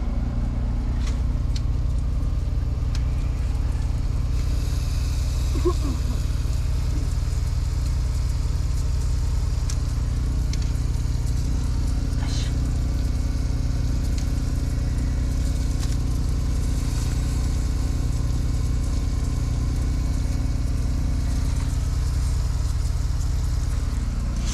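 An engine running steadily at idle, a low even drone, with a few faint clicks from work.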